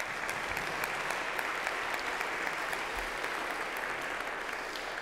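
A seated church congregation applauding, many hands clapping steadily, tapering off near the end.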